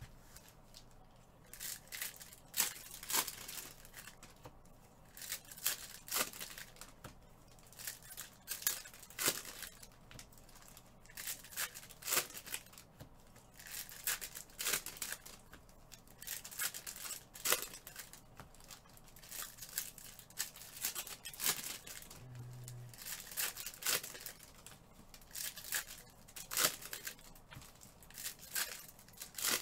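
Foil Prizm basketball card packs being ripped open one after another, the wrappers crinkling: short tearing rips every second or two.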